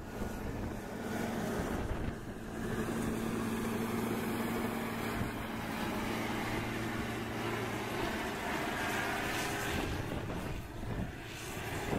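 Heavy diesel engine of snow-clearing machinery running steadily under load, a constant low drone.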